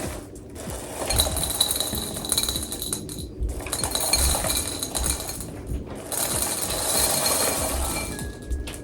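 Dry breakfast cereal rattling as it is poured into a bowl, in three long pours with short pauses between.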